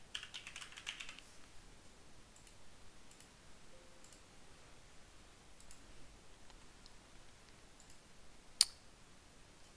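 Computer keyboard typing for about a second, then a few faint, scattered mouse clicks and one sharper, louder click near the end.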